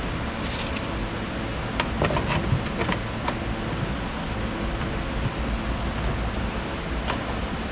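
Light metallic clicks of a spanner working the nut and bolt of a sway bar link, a few of them about two to three seconds in and one more near the end, over a steady hiss.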